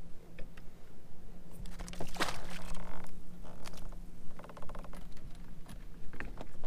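Light splashes and handling noises at the kayak's side as a pool-noodle fishing jug, its line tangled round a channel catfish, is let go into the river, over a steady low hum.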